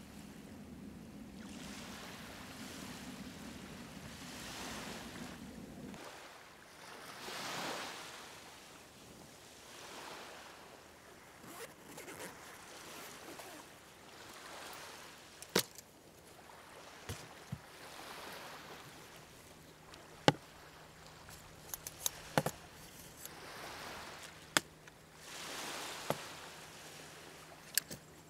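Surf washing on a beach in slow swells, with a low steady hum that stops about six seconds in. From the middle on come sharp clicks and knocks of camping gear being handled and set down on a wooden table: metal bottles, a coffee grinder and a padded case.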